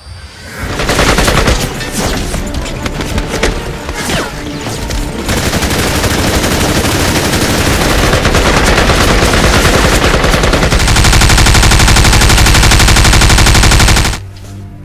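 Rapid gunfire, machine-gun bursts crackling densely and continuously. It builds in the last few seconds to a fast, even rattle that cuts off suddenly.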